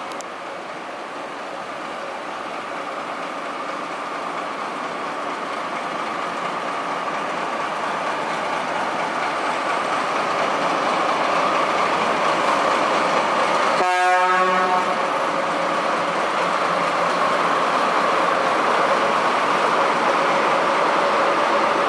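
Two diesel locomotives run by at low speed, with engine and rail noise growing steadily louder as they approach and pass. About fourteen seconds in, a locomotive horn gives one short toot.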